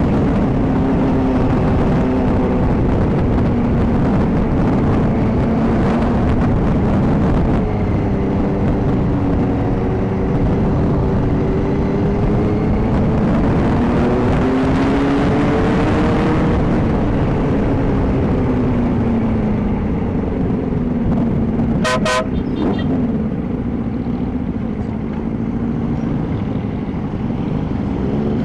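Motorcycle engine running under way, its pitch slowly rising and falling as the revs change, over a steady low rumble. A brief horn toot sounds about 22 seconds in.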